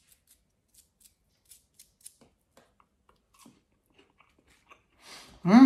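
Crisp crust of deep-fried potato fritters crackling as they are pulled apart by hand: a run of faint, sharp crackles that thins out after about two seconds. Near the end, a short, loud burst of a man's voice.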